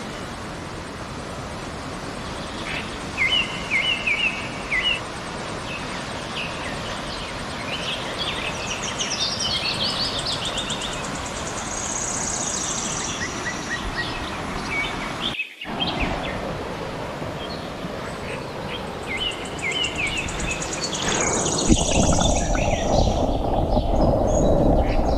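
Steady rushing of a swollen, muddy river in flood, with birds chirping over it several times. After a brief break about two-thirds in, the sound turns to a louder, muffled rush heard underwater near the end.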